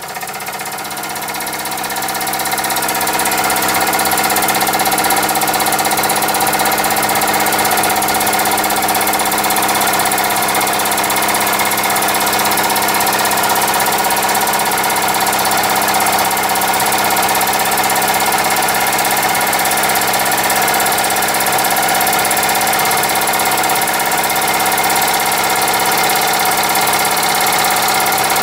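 Horizontally opposed twin-cylinder model steam engine, built from two Mamod SE3 engines, running on steam at a steady speed. It grows louder over the first few seconds, then keeps a steady buzzing hum.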